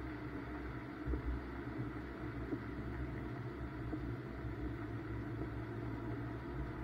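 BMW M2 engine running steadily at low, constant revs with no revving.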